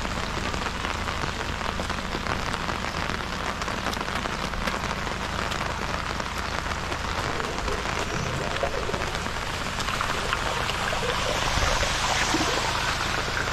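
Heavy rain falling steadily, a dense patter of drops, growing a little louder near the end.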